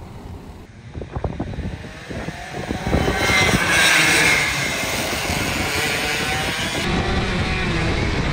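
A pack of racing go-karts passing close by, their engines buzzing and building to loudest about three to four seconds in, then easing off. Near the end it changes to one kart's engine running steadily, heard from on board.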